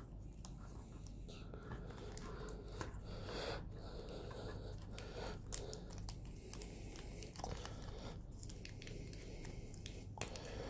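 Thin clear plastic protective wrap crinkling and crackling irregularly as fingers handle and peel it on a plastic action figure.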